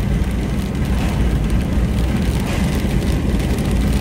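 Steady road rumble and wind noise of a vehicle driving on a wet highway, heard from inside the cabin; mostly a low rumble with an even hiss above it.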